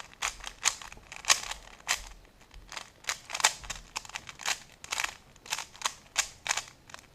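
Rubik's Cube being scrambled by hand: its plastic layers turn with quick clacks, about two or three a second at an uneven pace.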